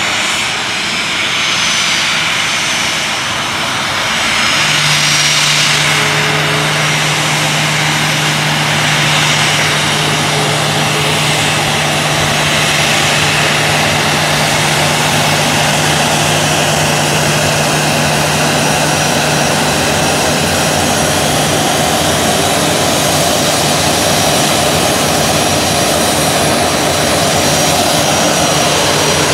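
Boeing 737 airliner's twin turbofan jet engines running at taxi power as it taxis in close by: a loud, steady rush with a faint high whine. A steady low hum joins about four seconds in.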